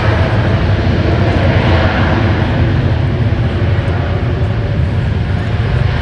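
Boeing 787-9 airliner's jet engines at takeoff power: a loud, steady roar with a deep rumble.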